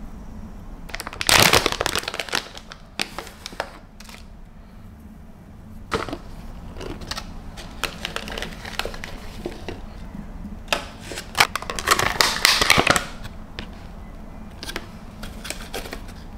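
Hands at work on a kitchen counter: a metal spoon scraping and clinking at a glass mason jar about a second in, then thin plastic clamshell berry punnets crackling as they are opened and handled, in several short bursts, the longest near the end.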